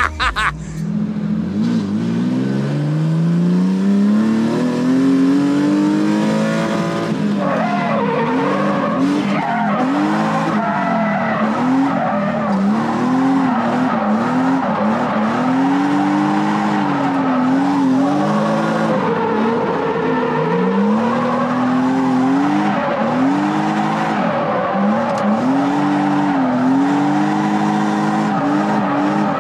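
A 1997 BMW E36 M3's straight-six engine revving hard through a drift run: one long climb in revs at the start, then revs rising and falling over and over as the car slides, with tyres squealing.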